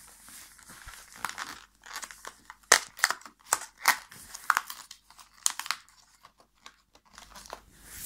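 Cardboard chocolate advent calendar door being torn open and the chocolate pressed out of its thin plastic tray: a run of irregular crinkling crackles, loudest in the middle.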